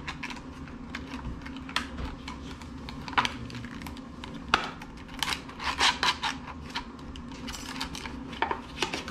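Plastic-and-cardboard packaging of a makeup brush being pried and torn open by hand: irregular crinkling and clicking, with a few sharper snaps.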